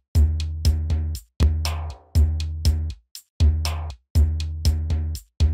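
Background music: an electronic drum beat with heavy, deep bass-drum hits and crisp percussion over them, repeating in a steady pattern.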